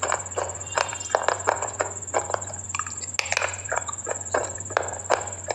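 Close-miked crunching of brittle food being chewed: sharp crisp crunches about three to four a second. Underneath runs a steady high whine and a low hum.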